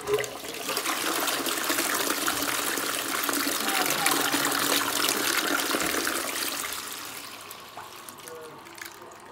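Ideal Standard toilet flushing: a loud rush of water into the bowl starts suddenly, holds steady for about six seconds, then tapers off into a quieter trickle as the flush ends.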